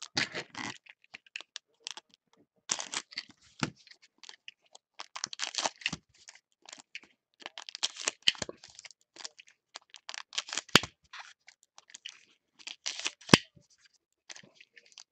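Foil wrapper of a trading-card pack crinkling and tearing as gloved hands open it, in irregular scratchy rustles with a couple of sharp clicks in the second half.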